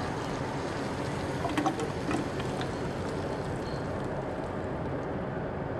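Steady rushing noise, with a few light clinks and taps between about one and a half and two and a half seconds in as cooked string beans slide from the pan onto a plate.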